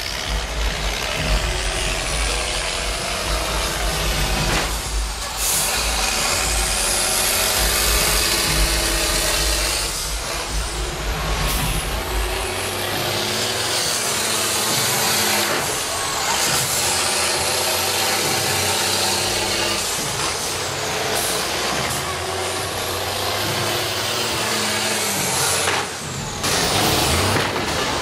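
Several school bus engines revving and running hard, rising and falling in pitch as the buses drive and ram one another, with a few sharp thumps about 5, 10 and 26 seconds in.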